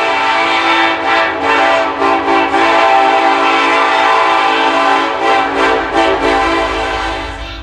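Diesel locomotive air horn of a GE C30-7 blowing a long, loud chord, feathered with several brief dips, easing off near the end as the low rumble of the passing train comes up.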